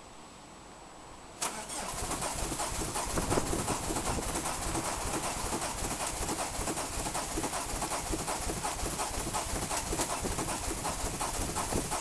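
Starter motor cranking a Peugeot 306 turbodiesel engine, starting suddenly about a second and a half in and turning over steadily without catching. The hard start is from two dead glow plugs.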